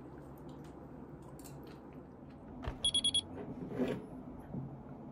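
Four quick electronic beeps in rapid succession a little after the middle, like a digital alarm or timer. Then, shortly after, a glass is set down with a clink on a wooden table. Faint cutlery clicks are heard before that.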